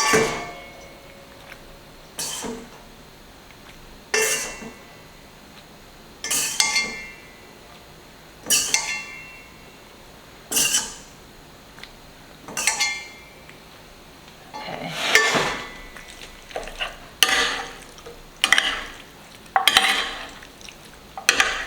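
A serving utensil clinking and scraping against cookware as cooked pasta shells are scooped into the dish: one scoop about every two seconds, quickening to about one a second near the end.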